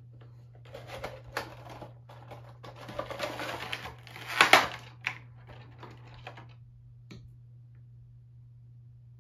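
Funko Pop box being unpacked: cardboard and a clear plastic clamshell insert rustling and crinkling as they are pulled out and opened, with the loudest plastic crackle about four and a half seconds in and a single click near seven seconds, over a low steady hum.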